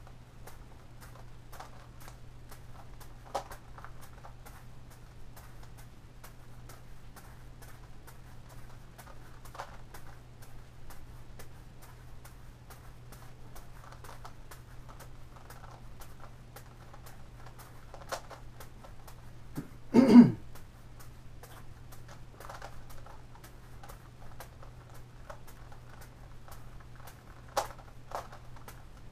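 A steady stream of light clicks and taps from a gigaminx puzzle being turned and a juggling ball dropping into the hand, with a few sharper taps. About twenty seconds in comes one short, loud cough-like sound from the juggler. A steady low hum runs underneath.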